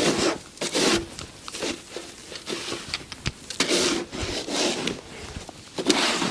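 A snow shovel scraping and scooping dry, powdery snow: a series of separate scraping strokes, about six of them with short pauses between.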